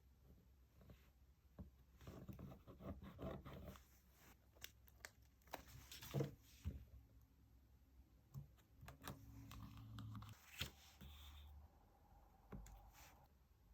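Faint paper and sticker handling: rustling, peeling and tearing, with scattered light taps and clicks.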